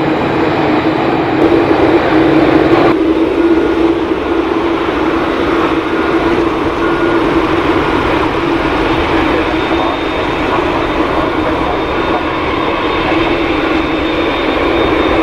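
Airliner turbofan engines running at taxi power, a steady rushing whine with a constant low hum. About three seconds in the sound changes abruptly from a Qantas Airbus A330-300 to a Qantas Boeing 787-9 Dreamliner.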